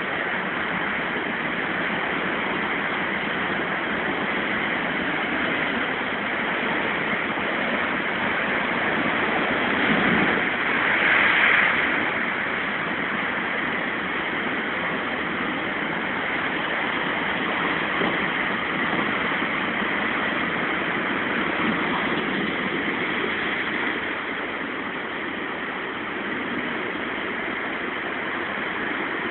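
Heavy surf from a rough sea: a steady rush of breaking waves and foam washing over rocks, swelling briefly about ten seconds in.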